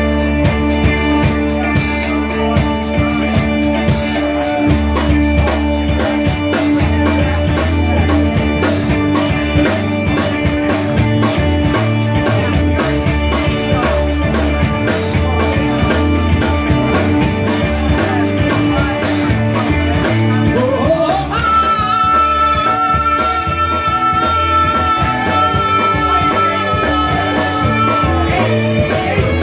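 Live rock band playing, with electric guitars, bass and drum kit and a male singer at the microphone. About two-thirds of the way through, a high note slides up and is held for several seconds.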